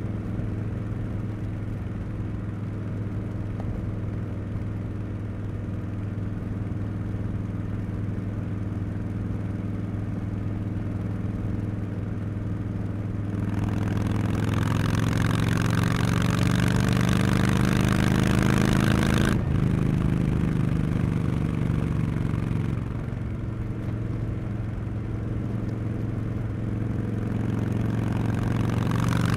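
A 2024 Harley-Davidson Street Bob 114's Milwaukee-Eight V-twin running through Cobra Neighbor Hater slip-on mufflers. It cruises steadily at first. About halfway through the throttle opens and the exhaust note climbs louder, breaks off sharply for a quick gear change, then climbs again before easing back to cruising.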